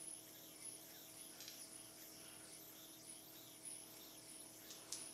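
Near silence: room tone with a few faint, soft clicks.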